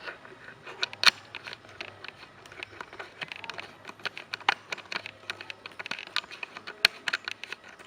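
Small objects being handled on a work surface: irregular clicks and taps, with a sharper knock about a second in and another near the end, over a faint steady low hum.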